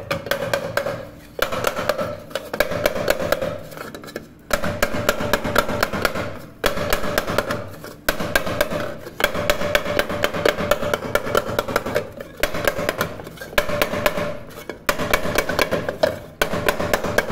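Rapid tapping on the bottom of an aluminium mug as a dent is knocked out with a shaped wooden block, several strikes a second in runs of one to two seconds with short pauses between. The metal rings under the blows.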